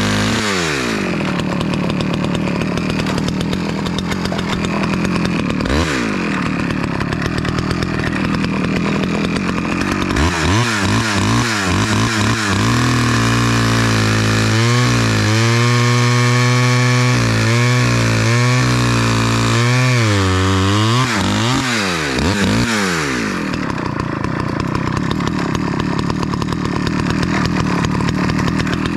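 Small Stihl two-stroke chainsaw cutting ash wood. It revs up and down several times and holds a steady high speed with brief dips for several seconds in the middle, then falls back.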